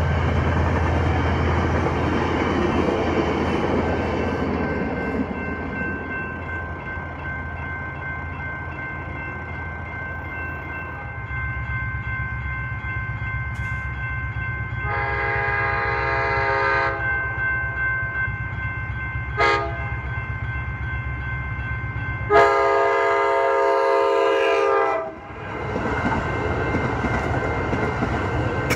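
A passenger train rumbles away over a grade crossing while the crossing bell rings steadily. An approaching Amtrak Pacific Surfliner sounds its horn for the crossing: a long blast, a short one, then another long one. Near the end the train's rumble and wheel noise grow as it reaches the crossing.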